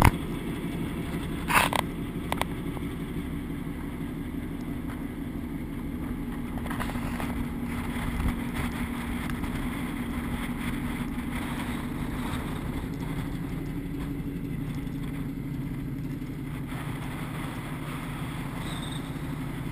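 A ship's engine running steadily under way, a low hum with the rush of water and wind over it. A brief knock sounds about one and a half seconds in.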